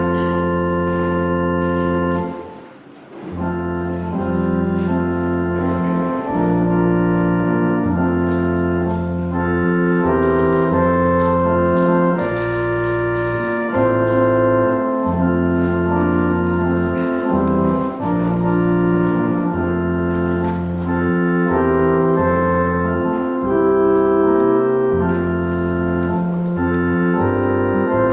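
Organ playing slow, held chords, with a short pause between phrases about two to three seconds in.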